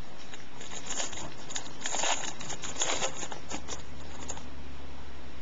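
A Topps Platinum trading-card pack wrapper crinkling and tearing as it is opened, with a cluster of light crackles over a few seconds in the middle.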